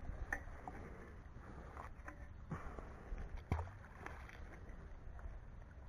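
A fishing magnet on a rope splashing into canal water about three and a half seconds in, among a few lighter knocks of rope and handling.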